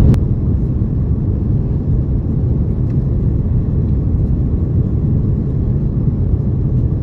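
Steady low rumble of engine and airflow noise inside the cabin of an Airbus A330-900neo on final approach, with landing gear down and flaps extended. A brief click comes right at the start.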